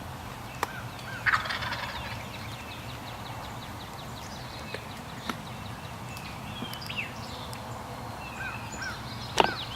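A wild turkey gobbler gobbling about a second in and again, louder, just before the end, with small songbirds chirping.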